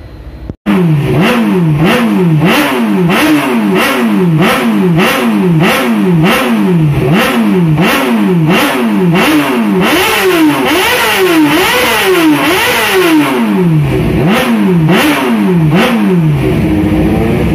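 Sport motorcycle engine revved over and over in quick throttle blips, about two a second, its pitch rising and falling with each blip. The blips spread out somewhat in the second half. It starts suddenly about half a second in.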